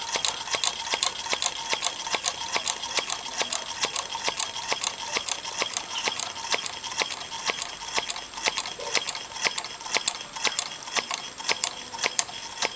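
A small homemade tin-can Stirling engine, heated by tea-lights, running: its wire crank and linkage click sharply and evenly, about three times a second.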